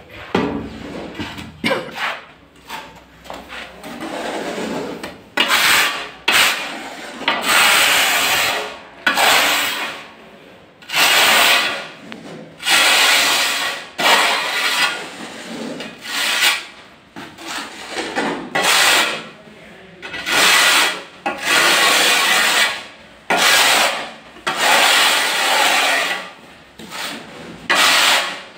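Notched trowel scraping through cement tile adhesive on the back of a large tile, in repeated sweeping strokes about one every second. The strokes are softer for the first few seconds, then louder and more regular.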